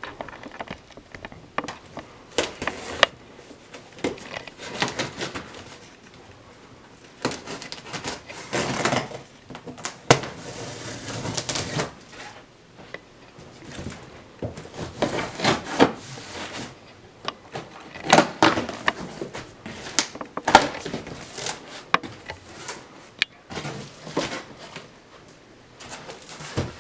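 A cardboard shipping box and its packing material being opened and handled: irregular rustling and scraping with scattered sharp knocks and clicks.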